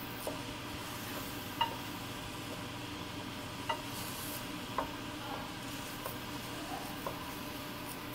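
Diced chicken frying in oil in a stainless steel pan, a steady sizzle, while a wooden spatula stirs it and knocks against the pan a few times with short, sharp clicks.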